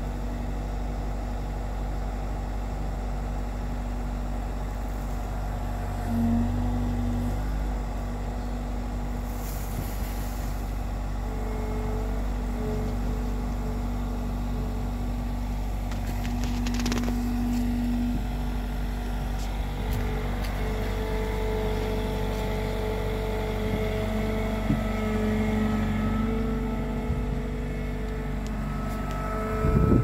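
Bobcat T66 compact track loader's diesel engine running steadily, with a higher hydraulic whine coming and going through the middle as the bucket is worked. There is a brief loud rustle near the end.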